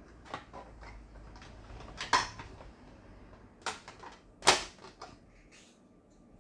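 Sewing machine's plastic housing covers clicking and knocking as they are handled and fitted back on during reassembly: a handful of separate sharp clicks, the loudest about four and a half seconds in.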